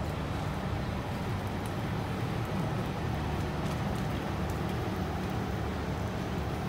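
Steady low rumble of a large diesel engine running, typical of a fire engine at a working vehicle fire, with a few faint sharp crackles on top.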